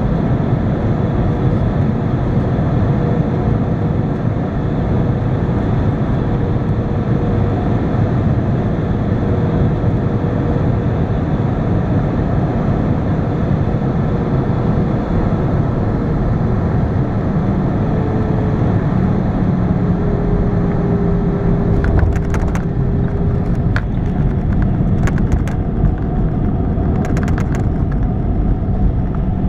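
Cabin noise inside an Airbus A320 airliner landing and slowing on the runway: a steady rumble of engines and rushing air, with a low engine hum that shifts in pitch in the second half. A scattering of sharp clicks and rattles comes near the end.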